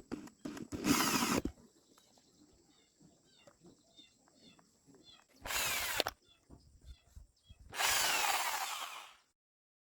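A power tool running in three short bursts, the last about a second and a half long.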